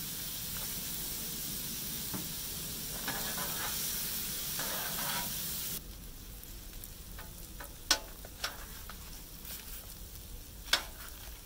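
Thin-sliced steak frying on a Blackstone steel griddle, a steady sizzle that drops off abruptly about halfway. After that a few sharp clicks of a metal spatula on the griddle top stand out over a quieter sizzle.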